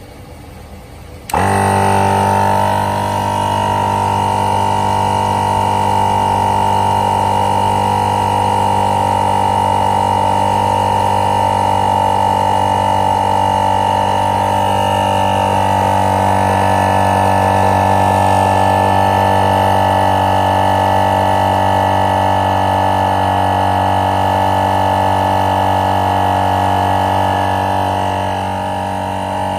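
GSPSCN heavy-duty dual-cylinder 12-volt portable air compressor switching on about a second in and running with a loud, steady drone as it inflates a car tire up from 0 PSI.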